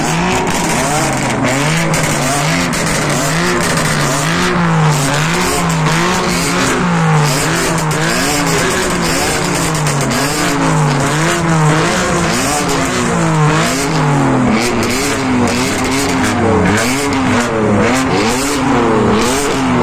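BMW M cars' engines revved over and over through their exhausts, the pitch climbing and dropping back about once a second. Two engines' revs overlap at times.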